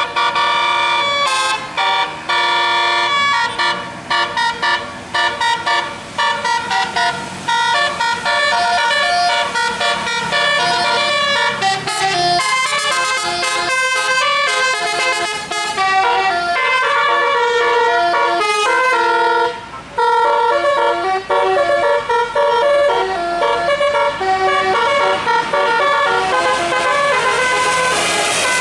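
Bus 'telolet' multi-tone musical air horn playing a tune, held pitched notes stepping from one to the next with short breaks between phrases.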